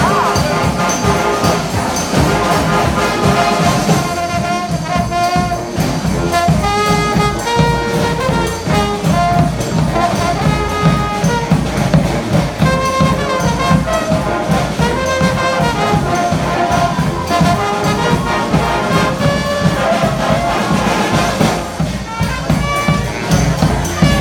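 Street brass band playing a melody, with horns carrying the tune over a steady drum beat.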